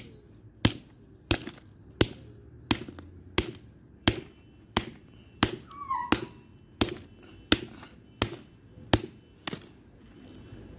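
A hammer striking a padlock again and again to break it open without the key: sharp knocks in a steady rhythm of about three every two seconds, some fifteen in a row.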